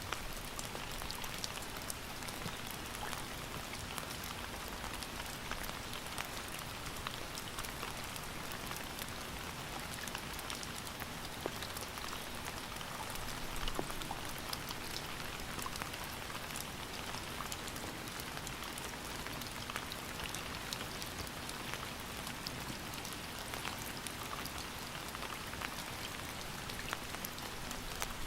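Steady rain falling, an even hiss with many separate drops pattering on a surface.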